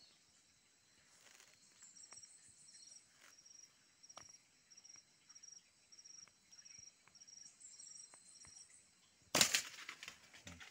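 Insects calling steadily in the forest: a high drone with a short, high chirp repeating about twice a second. Near the end comes one loud, brief burst of handling noise.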